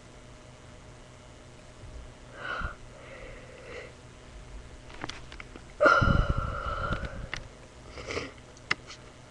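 A person sniffing with a cat hair in the nose, then one loud, sudden sneeze with a voiced tone about six seconds in, followed by a short sniff. The cat hair is irritating the nose of someone allergic to cats.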